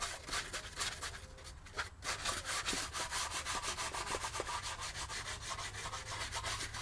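A fine abrasive sponge, wet with WD-40, scrubbed rapidly back and forth across the aluminium gasket face of a Renault F7P 1.8 16v cylinder head. It gives a quick, steady run of rasping strokes as it lifts surface grime without removing metal.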